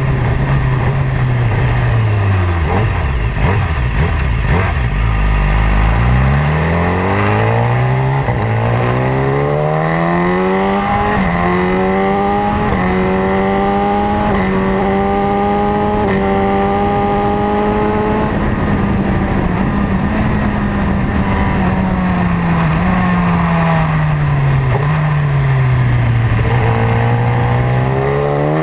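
Motorcycle engine under way. The revs drop low in the first few seconds, then climb back with a gear change about eleven seconds in and hold steady. They fall again near the end as it slows into a curve, then start rising once more, with steady wind rush throughout.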